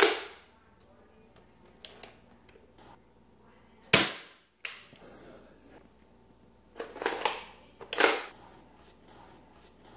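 Bug-A-Salt 2.0 salt gun firing: a sharp pneumatic pop right at the start and another about four seconds in, each with a short hissing tail. Between them come light plastic clicks, and near the end the gun's pump and mechanism make two rasping strokes.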